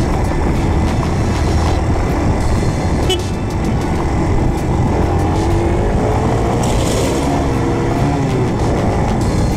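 Motorcycle engine running under way, its pitch rising and falling a little, with heavy wind rumble on the handlebar-mounted microphone.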